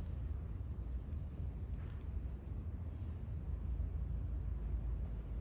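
A faint, high insect trill that grows clearer after about two seconds, over a steady low rumble of outdoor background noise.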